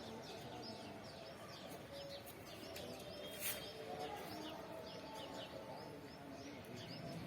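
Small birds chirping: short, quick high calls repeating several times a second, over softer, lower bird calls. A single sharp click about three and a half seconds in.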